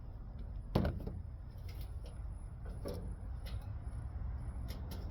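A sharp knock about a second in, then a few light clicks, from metal parts and screws being handled while an air conditioner's condensing unit is taken apart, over a steady low rumble.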